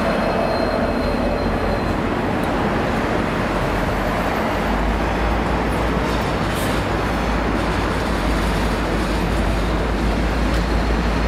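V/Line diesel-hauled passenger train rolling past below: a steady rumble of carriages on the rails, heavier in the low end from about halfway through.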